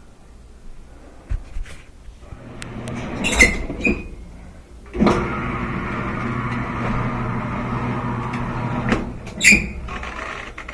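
Maytag top-loading washer being test-run after a new drive belt and water pump: a few clicks and knocks, then the washer's motor and drive start suddenly and run steadily with a low hum for about four seconds before stopping, followed by a loud knock.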